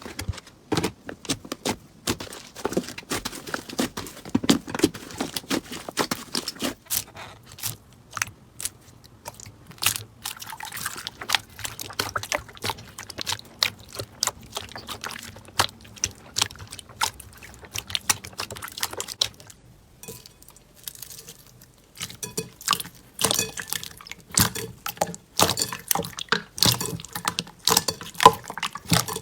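Slime being squished and pressed by hand: a dense run of wet clicks, pops and crackles, with a short quieter stretch about two-thirds of the way through.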